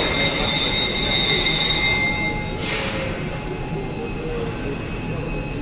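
Industrial plant ambience: a steady machinery rumble and noise, with a high metallic squeal of several steady tones held for about the first two seconds, then a short hissing rush a little past the middle.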